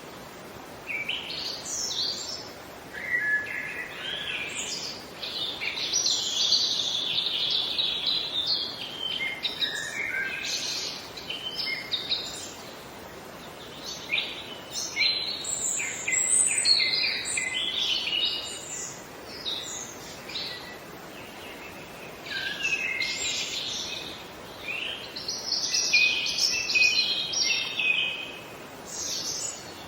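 Songbirds singing and chirping in quick, warbling phrases with short pauses between them, over a steady background hiss.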